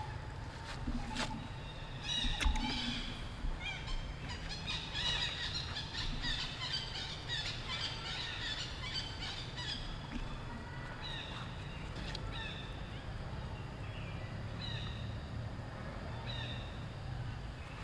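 Short, high-pitched animal chirps and squeaks, many overlapping in the first half, then single calls about once a second, over a low steady rumble.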